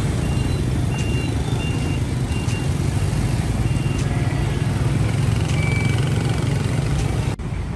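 Busy street traffic of motorbikes, scooters and pickup trucks, a steady low engine and tyre rumble. A short high electronic beep repeats a little under twice a second and stops about four seconds in. The sound drops out briefly near the end.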